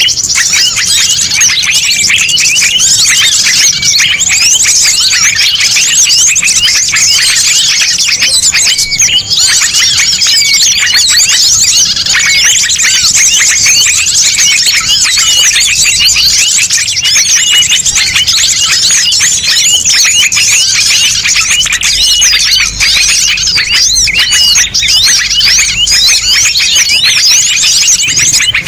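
Dense, loud chorus of many small songbirds chirping and twittering at once without a break, a mixed-species bird-lure (pikat) recording made to draw small birds in.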